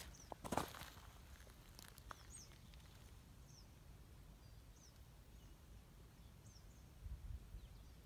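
Near silence: a small bird repeating a short, faint, high falling chirp about once a second. A brief rustle and crackle of movement comes about half a second in, and a low bump near the end.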